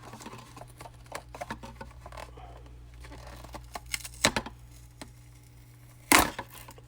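Hands working at glued-shut packaging: scattered light clicks and scrapes, with a sharp louder noise about four seconds in and a louder, short noisy burst just after six seconds.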